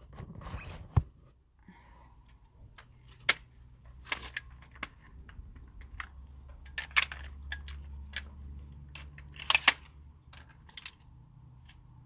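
Scattered sharp clicks and knocks of small objects being handled, over a low steady hum that starts about two seconds in.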